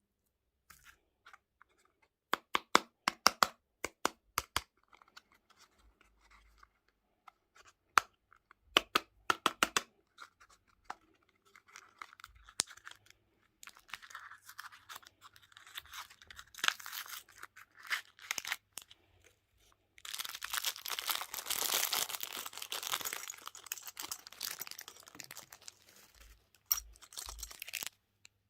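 Close-up eating sounds: scattered sharp crunchy bites and chewing, thickening about two-thirds of the way through into a dense, continuous crackle that stops shortly before the end.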